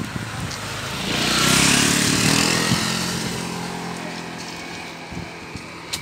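A motorcycle engine passing by, growing louder about a second in and fading away over the next few seconds.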